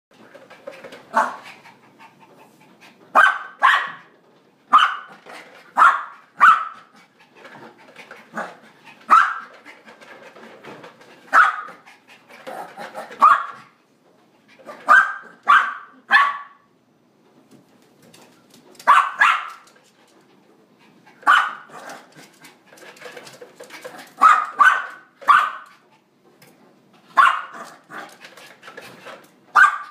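Puppy barking, short sharp barks that come singly or in quick runs of two or three, every second or few.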